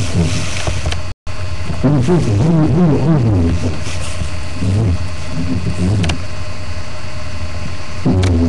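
Background music: a low steady drone with a wavering line over it that slides up and down in pitch. The sound cuts out completely for a moment about a second in.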